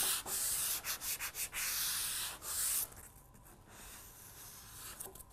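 Waxing cork rubbed back and forth over the grip zone of a cross-country ski, smoothing freshly ironed base grip wax into an even layer. A run of quick hissing strokes and one longer stroke, dropping to faint strokes after about three seconds.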